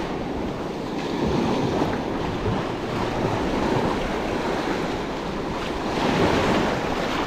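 Small waves washing up and back on a sandy beach, the wash swelling and easing, with wind on the microphone.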